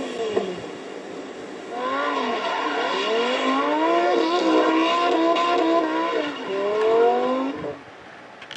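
A car engine revving and accelerating, its pitch rising, dipping and rising again for several seconds before cutting off near the end.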